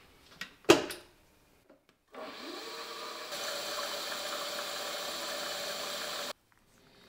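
A sharp click, then about a second later a benchtop milling machine's spindle motor starting up: a whine rising in pitch for under a second that settles into a steady run for about four seconds before cutting off suddenly.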